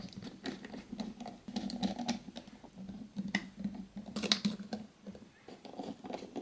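Precision Torx screwdriver tightening small screws in a phone's frame: a run of light, irregular clicks and scrapes of the bit and handle.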